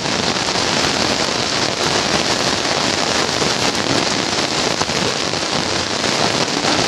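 Heavy rain falling steadily: a dense, even hiss of drops hitting the wet road and surroundings.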